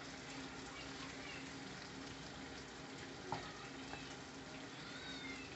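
Prawns sautéing in oil and spices in a frying pan, a faint steady sizzle over a low steady hum, with one light tap a little past halfway.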